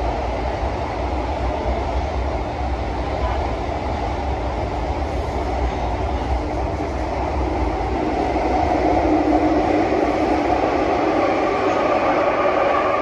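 Singapore MRT CT251 train running between stations, heard from inside the carriage: a steady rumble and rush of running noise. About eight seconds in, a whine of several steady tones comes in and the sound grows a little louder.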